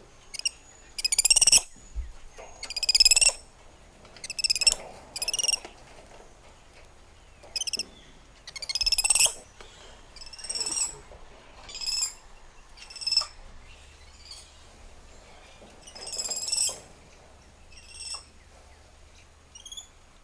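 Spider monkeys calling: a series of about a dozen short, high-pitched chirping calls with clear overtones, spaced a second or two apart, the last few fainter.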